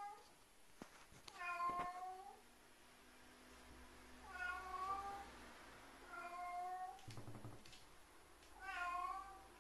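A domestic cat meowing four times, each a drawn-out meow that sounds like 'meron'.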